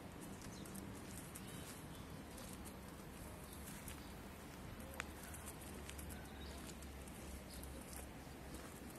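Faint outdoor street ambience: a steady low hum and background noise with scattered light clicks, and one sharper click about five seconds in.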